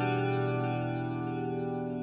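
Instrumental background music holding a sustained chord, its lower note shifting a little under a second in.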